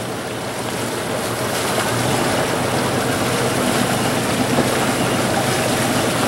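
Steady rushing noise of wind and water beside a docking schooner, with a low steady engine hum underneath. A deeper rumble comes in about two seconds in and the sound grows slightly louder.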